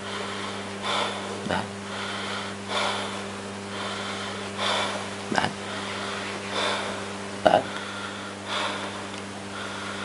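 A man breathing deeply in and out through his open mouth on instruction for chest auscultation, one breath about every two seconds, with a few short sharp clicks between breaths and a steady low hum underneath.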